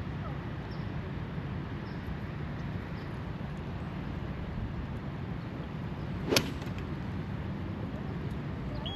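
Golf cart driving, a steady low rumble, with one sharp click or knock about six seconds in.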